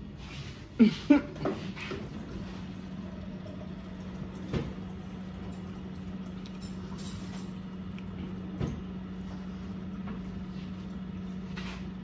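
A water machine running with a steady low hum that comes on about a second and a half in. A few short voiced mouth sounds from the eater come near the start, and there are a couple of faint clicks later.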